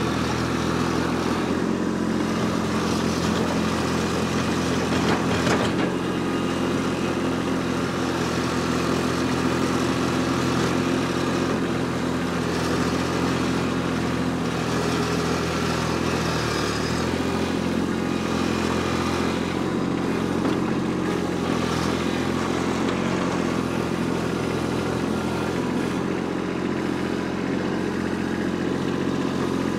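Kubota B2601 compact tractor's three-cylinder diesel engine running steadily while the tractor works the soil around a stump. Its pitch dips and recovers about halfway through.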